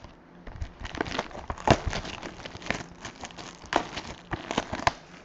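Clear plastic shrink wrap being torn and crinkled by hand off a box of NFL trading cards: irregular crackles and crumples, the sharpest about two seconds in.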